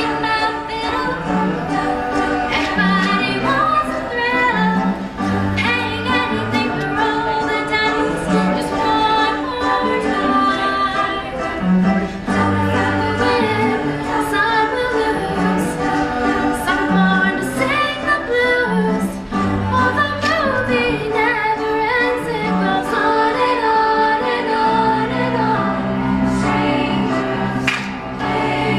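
A mixed school choir of girls' and boys' voices singing together in several parts, with low notes repeating beneath.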